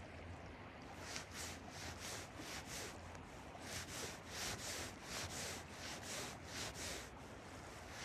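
Fly line being stripped in by hand through the rod guides: a hissing rub repeated two to three times a second, starting about a second in, over a steady low rumble.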